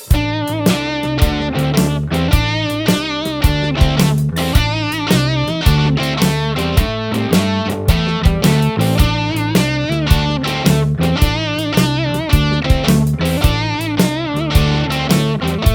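Intro music: electric guitar over a steady beat.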